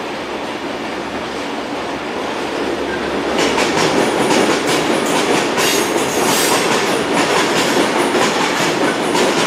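Freight train's covered box wagons rolling past on steel wheels, a steady rumble with rapid clattering of the wheels. It grows louder and the clatter thickens from about three seconds in.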